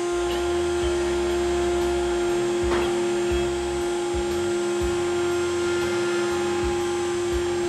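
A CNC router's spindle running with a steady whine, while the axis motors move in short spells as the tool ramps down in a zigzag toward the material.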